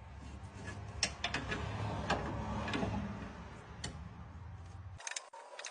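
Light, irregular metal ticks and clicks of a wrench working the nut of a compression-fitting line splice coupler as it is tightened, over a steady low hum that cuts off about five seconds in.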